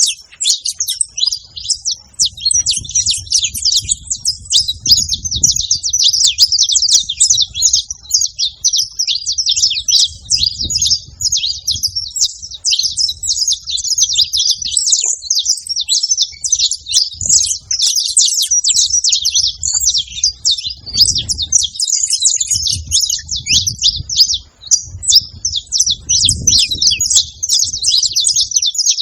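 Saffron finches chirping and singing continuously, a rapid unbroken run of high, sharp notes.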